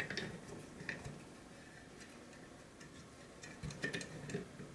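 Faint, scattered clicks and light knocks from the metal parts of a PanaVise 350 vise being handled as an adapter is fitted onto its head and adjusted, with a small cluster of knocks near the end.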